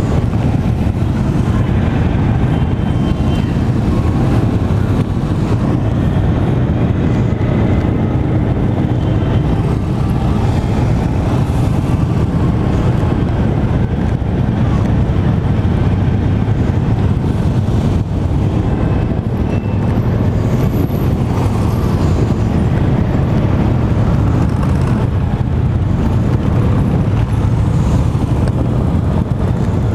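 Steady, loud riding noise from the back of a moving Vespa scooter: engine, road and wind rumble blended with many motorcycles running close alongside.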